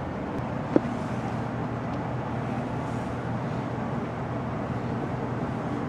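Steady low hum and hiss of background noise, with one short sharp click a little under a second in.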